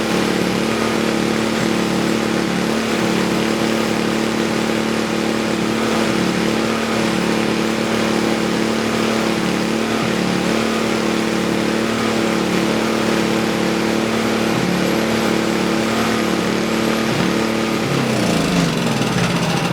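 All-Power snowblower's small gas engine running steadily at a constant speed, now running smoothly on gas after its repair, then shut off near the end, its pitch falling as it winds down.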